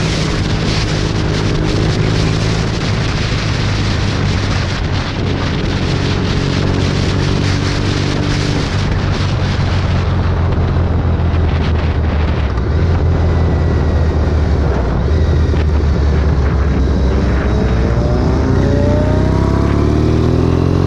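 Motorcycle engine running at a steady road speed with heavy wind noise on the microphone. The wind hiss eases about halfway through, and near the end the engine pitch climbs steadily as the bike accelerates.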